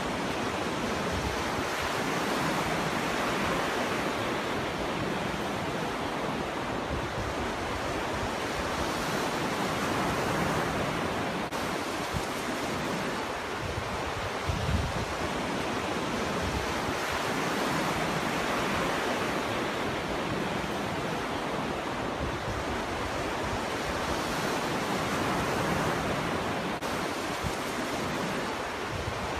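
Ocean surf: waves breaking and washing ashore in a continuous rush that swells and eases every several seconds. A brief low thump about fifteen seconds in.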